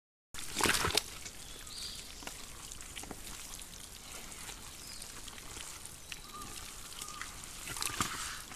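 Wild boar sow and piglets rooting and shuffling in a wet mud wallow: soft squelching, splattering and scattered wet clicks of mud, with a brief loud burst just under a second in.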